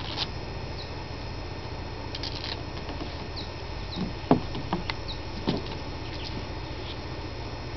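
A toddler's feet and hands knocking on wooden deck steps, a few dull thumps about halfway through, over a steady low camcorder hum. A few short, high, downward-sliding bird chirps are scattered throughout.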